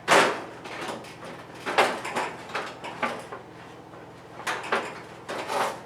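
The metal housing of a Kero World KW-11F kerosene heater clanking and scraping as it is worked back into place on the heater. There is a sharp clank right at the start, then several more knocks and rattles.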